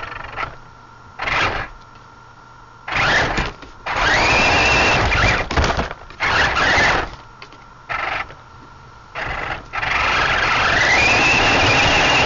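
Nerf TerraScout RC drone's electric motors whirring in repeated short bursts as it moves. The two longest bursts, about four seconds in and again near the end, carry a whine that rises and then holds steady as the motor comes up to speed.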